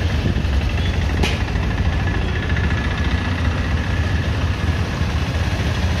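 Steady engine and traffic rumble of a busy street, with a short click about a second in.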